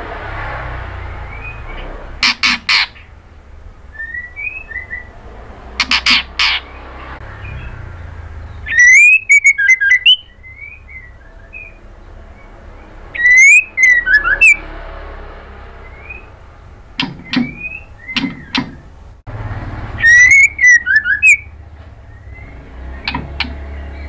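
White-rumped shama singing: loud bursts of fast, gliding whistled notes come every few seconds. Short harsh rasping calls fall between them.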